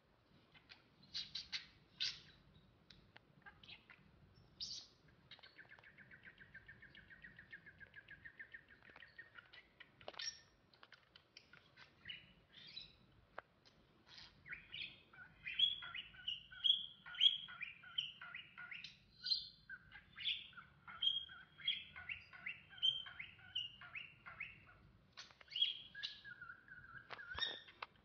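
Small pet parrots, a budgerigar and a cockatiel, chirping and warbling: scattered chirps at first, a fast chattering trill about a quarter of the way in, then a long run of rapid warbling, chattering notes through the second half.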